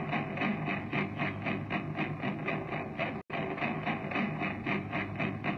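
Live band music led by guitar, with a fast, even pulse. The sound cuts out for an instant about three seconds in.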